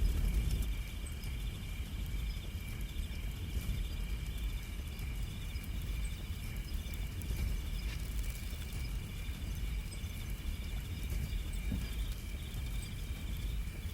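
Crickets trilling steadily in a continuous high chorus, over a constant low rumble of wind on the microphone.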